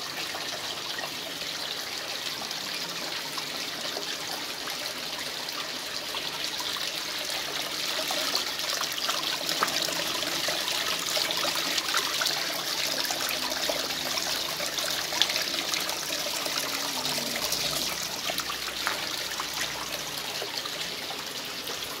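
Water running and trickling down a small homemade cement waterfall fountain into its basin, a steady splashing flow that gets louder for several seconds in the middle.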